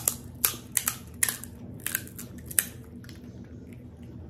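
Crisp fried panipuri shells (golgappa puris) cracking as a fingertip pokes holes in their tops. About half a dozen sharp, crunchy cracks come in the first two and a half seconds, then it goes quieter.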